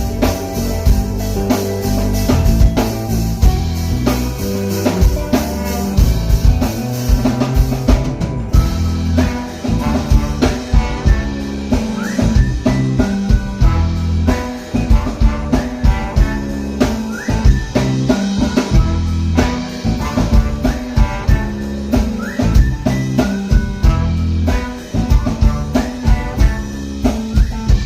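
Band music with a drum kit keeping a steady beat under guitar, cutting off abruptly at the end.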